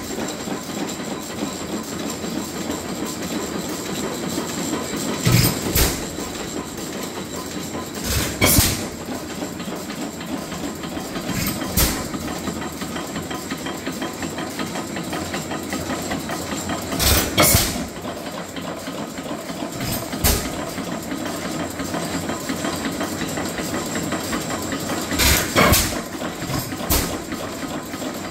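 1912 Lutz Brothers & Wilson 8 hp portable benzine engine, a horizontal single-cylinder engine, running with a steady clatter. Loud sharp bangs stand out every few seconds, often two in quick succession.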